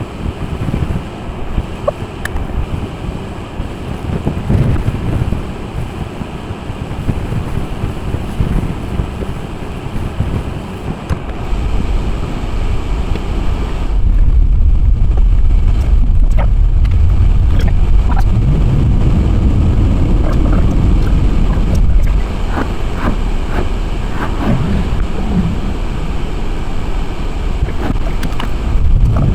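Strong wind buffeting the microphone with a loud, low rumble that grows heavier about twelve to fourteen seconds in and stays loud.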